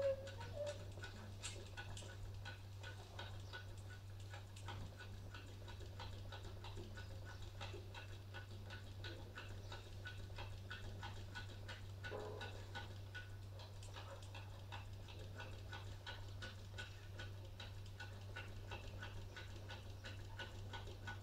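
A dog on a balcony making a faint, quick rhythmic ticking, about three a second, with a short whine right at the start.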